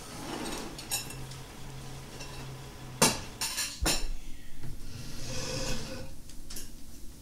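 Fork and knife clinking and scraping on a dinner plate, with a few sharp clinks, the loudest two about three and four seconds in.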